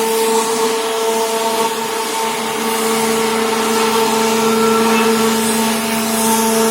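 Woodworking CNC router running steadily while engraving a membrane door panel: a constant whine from the spindle with several overtones, over a rushing hiss of cutting and air.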